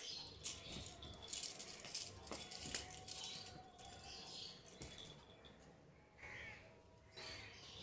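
Faint scattered rattling and light clicks, clustered in the first three seconds with one more click near five seconds in.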